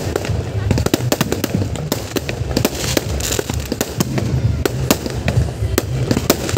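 Fireworks display: aerial shells bursting overhead, giving many sharp bangs and crackles in quick, irregular succession over a continuous low rumble.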